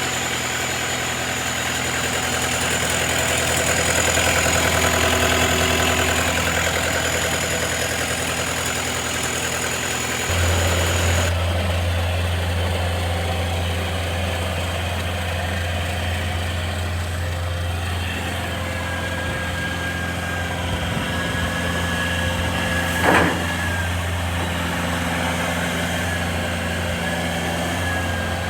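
Kubota SSV55 skid steer's four-cylinder diesel engine idling steadily. About ten seconds in, a high whine drops out and the low engine hum gets stronger, and a single sharp knock sounds near the end.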